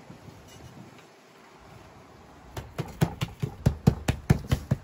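Fingertips patting and pressing a round sheet of yeast dough flat on the table: a quick, even run of soft taps, about five a second, starting about halfway through after a quiet start.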